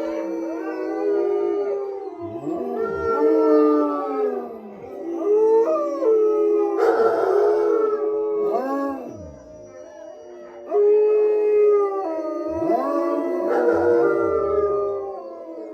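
Wolfdogs howling in chorus, several voices overlapping in long rising and falling howls at different pitches. The howling eases off about ten seconds in and swells again a second later.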